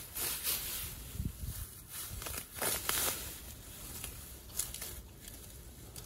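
Irregular crackling and rustling of dry grass and weeds being cleared, with a few louder scratchy crackles near the middle.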